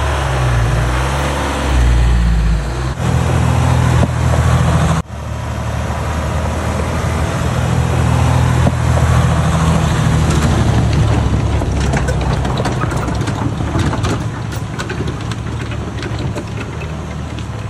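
Jeep Wrangler JL EcoDiesel's 3.0-litre V6 turbodiesel running steadily as the Jeep drives along a dirt trail. The sound cuts off abruptly about three and five seconds in, and small scattered clicks come in during the later seconds.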